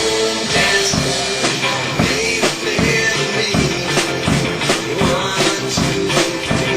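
Rock song playing, with a drum kit keeping a steady beat under the other instruments.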